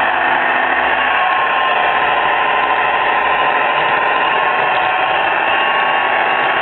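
G-scale Aristocraft FA1 model diesel locomotive running along its track, heard close up: a steady, even whir from its drive blended with the Soundtraxx Sierra sound board's diesel engine sound.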